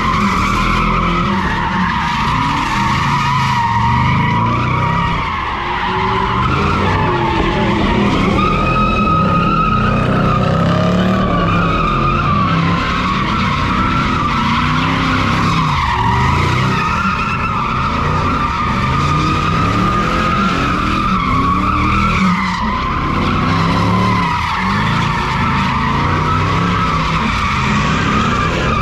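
Car tyres squealing without a break as a car spins donuts, the squeal's pitch wavering, while the engine revs up and down every couple of seconds.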